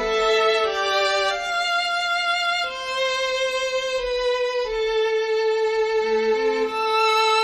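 String quartet playing a slow passage in A minor: long held violin notes changing every second or so, mostly the first violin alone, with a lower voice sounding briefly near the end.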